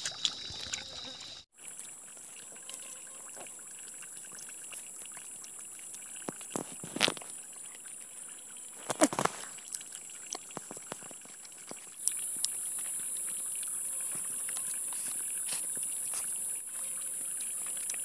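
Steady high-pitched drone of forest insects, which gets louder about two-thirds of the way through. A few faint clicks and rustles come from food being handled.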